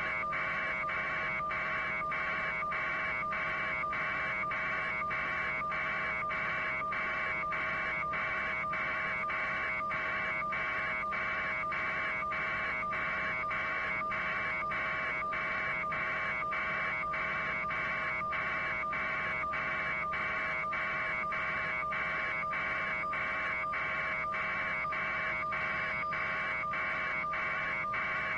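Steady electronic hiss cut by brief, evenly spaced dropouts a few times a second, over a faint steady hum.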